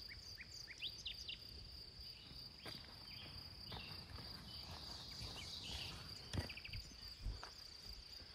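Faint, steady high-pitched insect drone from the woods, with a few short bird chirps in the first second or so and several footsteps scuffing on the dirt trail.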